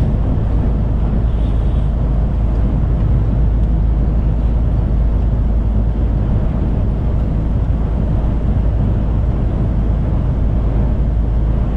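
Steady engine and road noise inside a truck cab cruising at motorway speed, a low even drone that does not change.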